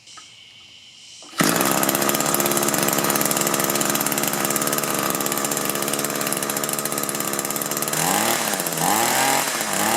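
Echo two-stroke hedge trimmer engine running with its air filter removed, a test of whether the dirty filter was restricting it. The engine starts abruptly about a second in and runs steadily. Near the end its pitch rises and falls a few times.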